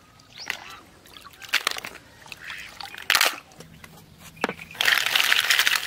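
Water sloshing and splashing as a woven bamboo basket is scooped through shallow river water. Near the end comes a dense, louder clatter, with mussel shells rattling in the basket.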